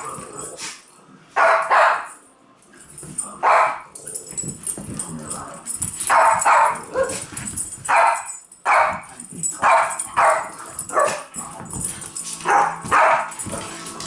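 Small spaniels barking excitedly in play, about a dozen short, sharp barks at irregular intervals, while they chase a laser dot.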